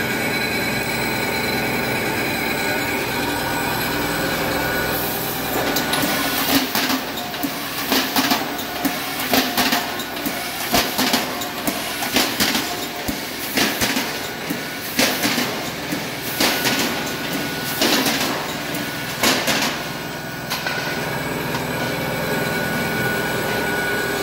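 Soudronic AFB 108 automatic can body welder running with a steady mechanical hum. From about five seconds in until about twenty seconds in, a run of sharp, irregular bursts of clatter and hiss, about one a second, sounds over the hum, then stops and leaves the steady hum.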